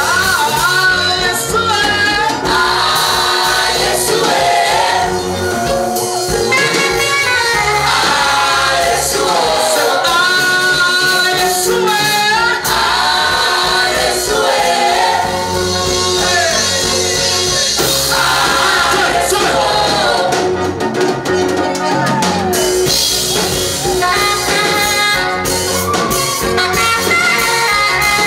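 Gospel song: singing over an instrumental band with a steady beat.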